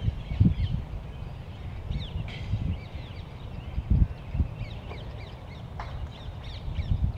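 Many short, quick bird chirps and calls scattered throughout, over irregular gusts of wind rumbling on the microphone.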